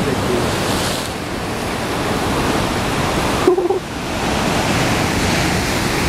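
Ocean surf washing over a rocky shore: a continuous rushing of waves and foam, with a large swell building to break near the end.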